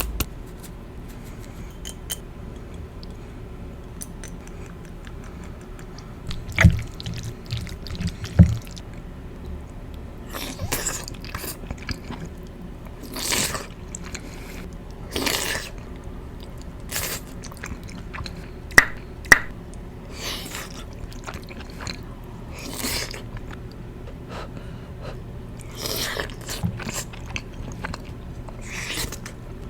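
Close-miked chewing of creamy chicken pasta: scattered wet mouth sounds and smacks. Two low thumps come in the first third and two sharp clicks about two-thirds of the way through.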